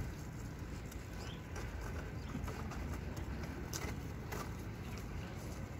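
Shopping cart being pushed over car-park pavement: a steady rumble of its wheels rolling, with scattered clicks and rattles.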